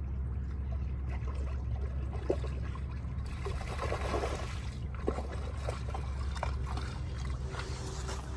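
A borzoi wading through shallow water, with the loudest splashing about four seconds in and scattered small splashes, over a steady low hum.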